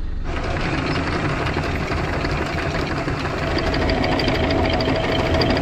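Electric anchor windlass starting up just after the start and hauling in the anchor chain. The motor runs steadily, a steady tone comes in about halfway, and faint regular ticking comes from the chain in the second half.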